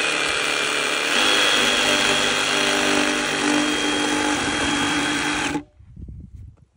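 Flex 24V cordless reciprocating saw cutting into a wooden post. The motor whine and blade strokes speed up about a second in, then stop abruptly a second before the end.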